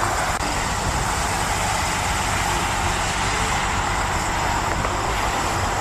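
Water running in a steady stream, rinsing mud off a toy truck; it cuts off suddenly just after the end.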